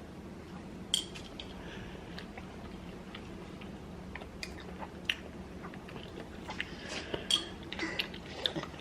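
Close-miked mouth sounds of a person chewing food: scattered soft, wet smacks and clicks that come more often in the last couple of seconds.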